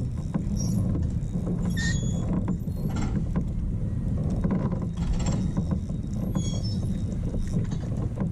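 Kayak on a lake: a steady low rumble of wind and choppy water around the hull, with a few faint high chirps.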